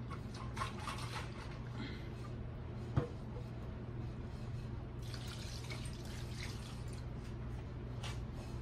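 Thin chile sauce and rinse water poured from a blender jar into a steel pot of sauce, splashing and dripping in two pours, with a single sharp knock about three seconds in.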